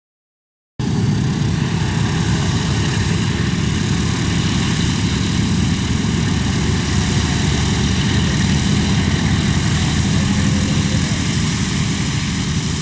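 Boeing B-17G's four Wright Cyclone radial engines droning loud and steady on a flyby, cutting in abruptly about a second in and easing slightly near the end.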